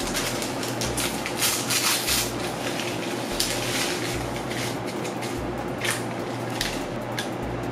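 A paper packet rustling as its contents are shaken into a bowl of oatmeal, then a spoon stirring and knocking against the bowl, with scattered sharp clicks and scrapes.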